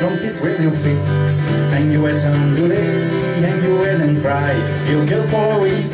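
A man singing an American folk song while playing an acoustic guitar.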